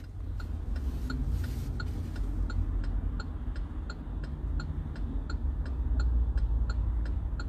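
Car turn-signal indicator ticking steadily, about three clicks a second, over the low rumble of the car, heard inside the cabin.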